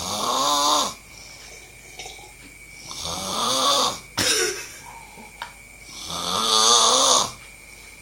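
A person snoring: three long snores about three seconds apart, each one a pitched rasp that rises and then falls. A sharp click comes just after the second snore.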